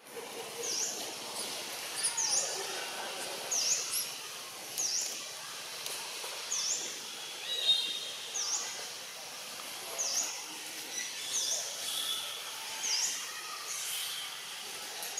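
Small bird calling over and over, roughly once a second: short high chirps that dip and rise in pitch, over a steady outdoor background hiss.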